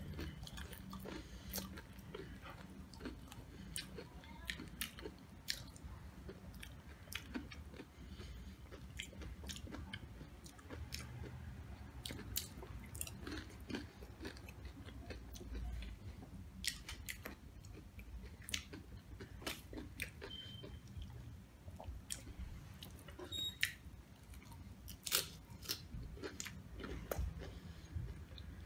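Close-miked chewing and biting of Doritos nachos, with crunching tortilla chips making many short, irregular crackles.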